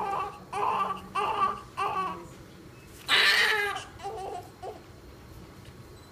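Newborn baby crying in short, repeated wails for the first two seconds. One louder cry comes about three seconds in, followed by a few weaker whimpers before the crying stops.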